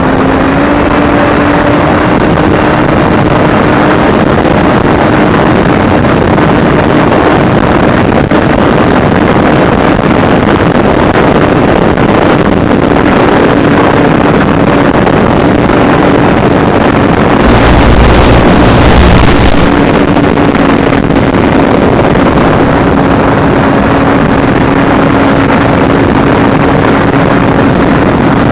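FPV drone's electric motors running steadily, a constant hum with a faint higher whine over rushing wind noise. The pitch rises slightly about a second in and eases back down later. A louder low buffeting rumble comes about two-thirds of the way through.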